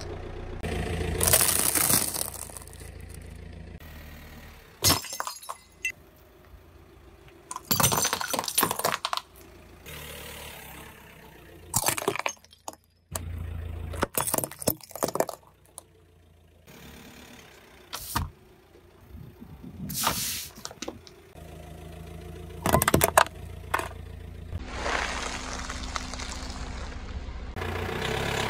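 A car tyre rolling over and crushing brittle objects one after another: a run of separate sudden cracks and shattering crunches a few seconds apart, with a low engine hum underneath.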